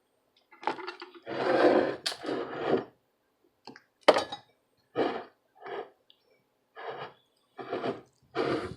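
Handling noises from work on a small circuit board: a scraping, rustling stretch about a second in, then a run of short separate knocks and clinks about once a second.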